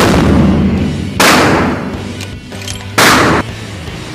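Unsuppressed 300 PRC bolt-action rifle firing in an indoor range: a very loud shot right at the start that rings off over about a second, then two more short loud blasts about a second and three seconds in. Background music plays underneath.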